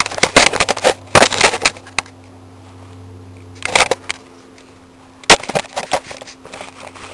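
Handling noise: clusters of sharp crackles and clicks from a plastic zip-top sandwich bag being handled and the camera jostling, busiest in the first two seconds, then a few separate clicks.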